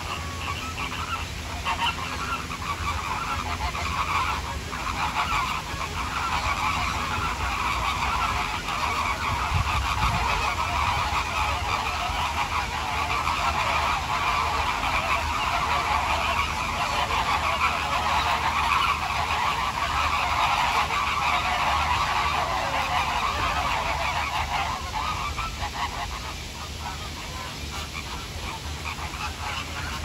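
A flock of American flamingos calling all together, a dense continuous chorus of calls that builds over the first few seconds, is thickest through the middle, and thins out near the end.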